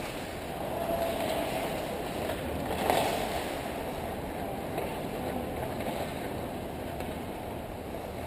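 Ice hockey play: skates scraping across the ice and sticks clacking, with one sharper crack about three seconds in.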